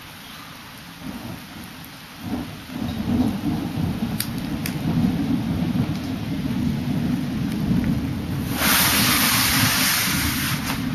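Thunder rumbling low, building about two seconds in and rolling on, over steady rain. A louder hiss swells in near the end.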